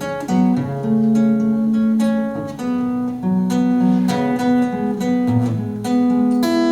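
Acoustic guitar playing an instrumental passage between sung verses, with picked notes and chords ringing.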